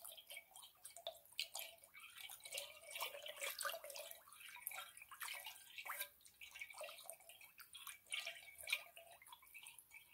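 A small stick moving in water in a large metal basin: faint, irregular drips, plinks and small splashes.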